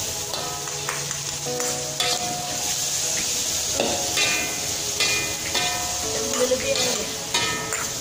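Beef, onion and tomato sizzling in a hot metal wok while a ladle and spatula stir and scrape through it, with metal clinks every second or so, over background music.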